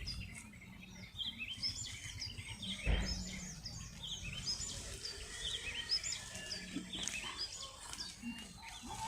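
Birds chirping over and over in short, quick calls, over a low background rumble, with a single dull thump about three seconds in.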